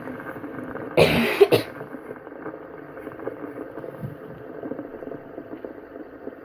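A person's short cough about a second in, over the steady whirring rattle of fidget spinners spinning on a tabletop.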